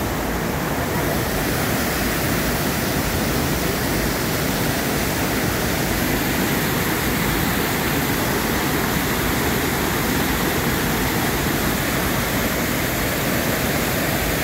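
Water pouring steadily from concrete outlets and cascading over a weir into foaming water below, an even, unbroken rush.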